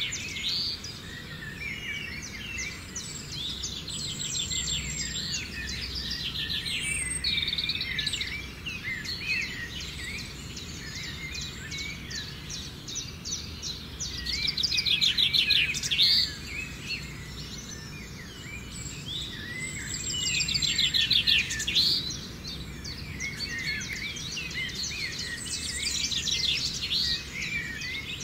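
Many birds chirping and calling at once, with fast buzzy trills repeating every few seconds that grow loudest about halfway through and again a little later.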